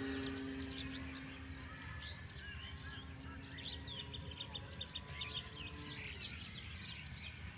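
Birds chirping in quick, short notes over a steady low drone from an RC plane's electric motor and propeller. The drone fades over the first couple of seconds as the plane flies off and is gone about six seconds in.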